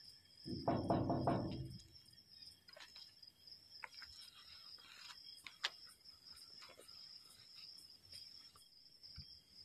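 Crickets trilling steadily, with a short, louder muffled sound about half a second in and a few faint ticks later on.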